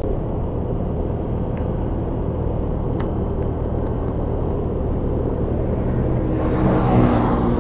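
Motorcycle being ridden at steady speed: a steady low engine drone under a haze of road noise, with a rush of noise swelling near the end.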